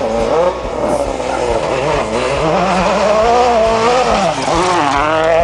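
Ford Fiesta RS WRC rally car's 1.6-litre turbocharged four-cylinder engine at full effort, its pitch climbing and dropping again and again with throttle and gear changes, louder near the end as the car comes close.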